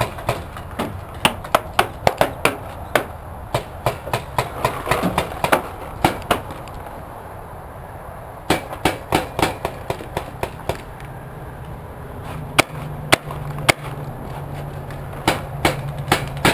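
Paintball markers firing in irregular bursts of sharp pops, several a second, with a lull of about two seconds around the middle.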